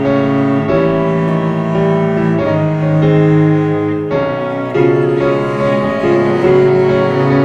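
Slow instrumental music led by piano, playing sustained chords that change every second or so.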